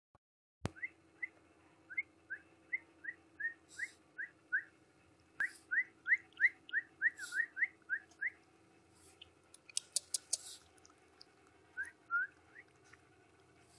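A string of short, high chirps, each rising in pitch, repeated about three times a second. They stop about eight seconds in, and two more follow near the end. Brief high scratchy and clicking noises are scattered between them, with a cluster about ten seconds in.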